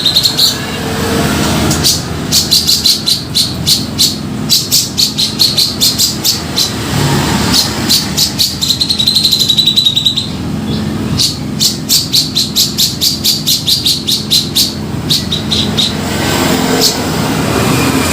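Cucak jenggot (a bulbul) lure call: runs of rapid, sharp chattering notes, about five a second, broken by a wavering trilled note, over a steady low rumble.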